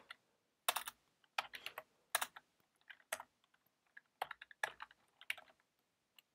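Typing on a computer keyboard: irregular keystroke clicks, often a few in quick succession, separated by short pauses.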